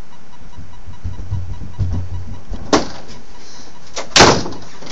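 A wooden interior door banging: a short sharp knock a little past halfway, then a louder bang near the end as the door is thrown open, over steady mic hiss.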